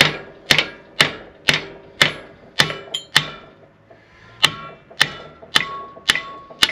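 Steel hammer blows on a steel part of a Schaefer disc harrow's gang, about two strikes a second with a brief metallic ring after each, pausing for about a second midway. The part is being knocked loose off the gang.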